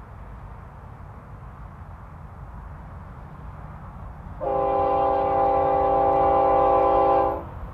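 Diesel locomotive air horn on the approaching Union Pacific GE ES44AH sounding one long steady chord of about three seconds for a grade crossing, starting a little past halfway through. A low steady rumble runs underneath.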